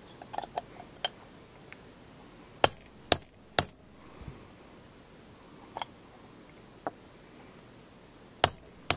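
Scattered sharp metallic clicks and taps of a steel punch against a stainless pistol slide. A quick group of three comes about a third of the way in, and a close pair near the end.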